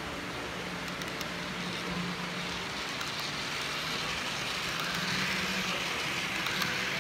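H0-scale model passenger coaches rolling along curved track: a steady rolling hiss of small metal wheels on the rails, growing slightly louder about five seconds in, over a faint low hum.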